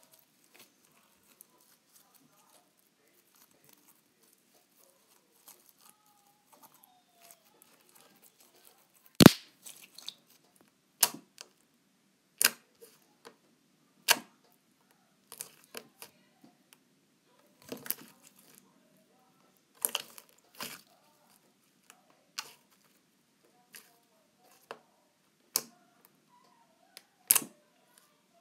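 Foam squishy toys being stirred and squeezed by hand in a plastic bowl: faint rustling broken by a dozen or so sharp taps and knocks at irregular intervals, the loudest about nine seconds in.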